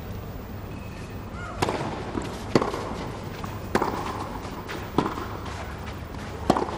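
Tennis ball struck by rackets in a baseline rally on a clay court: five sharp hits, about a second and a quarter apart.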